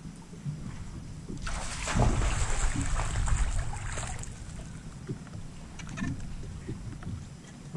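A hooked bass splashing and thrashing at the water's surface for about two and a half seconds as it is reeled to the boat, then quieter knocks and ticks as it is lifted out.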